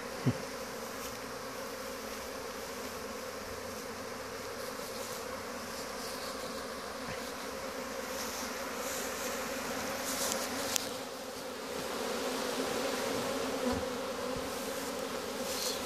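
A swarm of honey bees buzzing in a steady hum around and inside a wooden swarm box, just after being shaken in from the swarm cluster.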